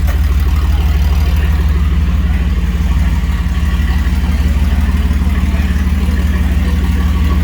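Car audio subwoofers playing one steady, very loud low bass tone without a break: a sound-pressure-level competition run.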